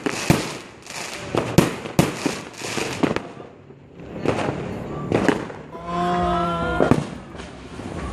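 New Year fireworks going off in a rapid run of sharp bangs and crackles, thinning out after about three seconds. Later a held, pitched tone with slightly gliding overtones sounds for about a second.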